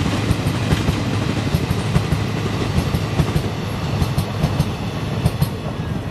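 Passenger train coaches rolling past, their wheels clattering rapidly over the rail joints above a low rumble. The sound eases a little after about four seconds as the last coach moves away.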